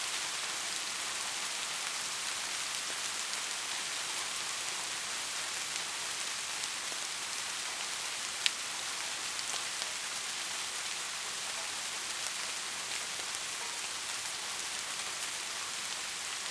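Soft, steady rain: an even hiss of falling rain with scattered individual drops ticking on a surface, and one sharper, louder drop about halfway through.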